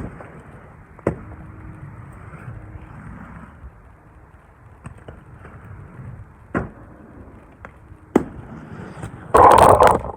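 Inline skate wheels rolling on pavement, with several sharp clacks as the skates land from jumps, and a loud rush of noise near the end. The landings sound solid, with no crack or squish from the 3D-printed PLA sole frames.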